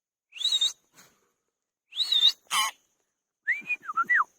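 Indian ringneck parrot calling in short bursts: three brief calls in the first three seconds, then a whistled call whose pitch rises and dips, near the end.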